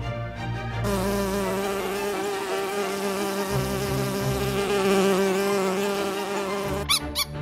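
Carpenter bee buzzing, a continuous drone whose pitch wavers slightly. Shortly before the end it breaks off and a run of short, high squeaks begins.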